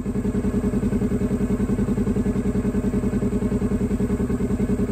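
Side-by-side utility vehicle's engine running steadily with a fast, even throb and no change in pitch.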